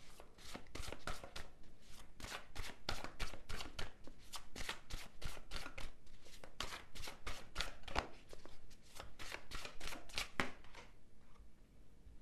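A deck of tarot cards being shuffled by hand: an irregular run of crisp card clicks and slaps, several a second, that stops shortly before the end.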